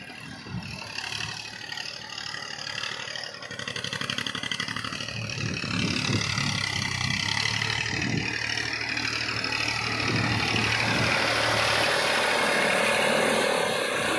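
Massey Ferguson 1035 DI tractor's three-cylinder diesel engine running under load as it pulls a tiller through a flooded, muddy field, growing steadily louder as it approaches. Near the end, mud and water churn noisily under the rear tyres as it passes close by.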